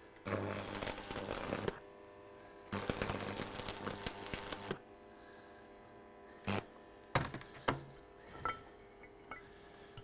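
Stick (arc) welder striking two short tack welds, each a second or two of crackling, sizzling hiss over a low steady hum. A few sharp taps or clicks follow in the second half.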